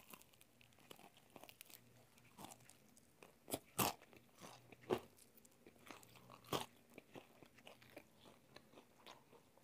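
Crunchy bites and chewing through the crisp flour-and-starch breaded crust of home-fried chicken pieces. Four loud crunches in the middle, with faint chewing around them.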